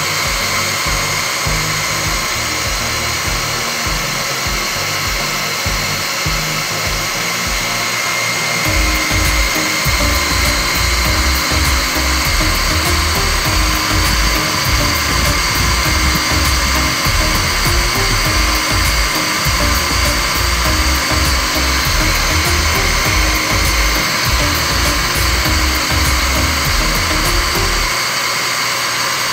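Single-phase water pump motor with a run capacitor, running steadily: a continuous whirring hiss with a fixed high whine. Background music plays underneath.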